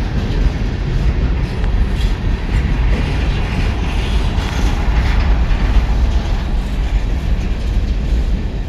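Empty coal cars of a freight train rolling past: a steady rumble of steel wheels on the rails with a few faint clacks.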